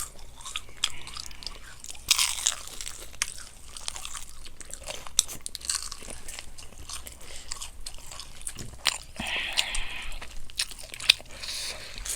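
Fried chicken being bitten and chewed: a run of crisp crunching bites and chewing, with louder crunches about two seconds in and again near the end.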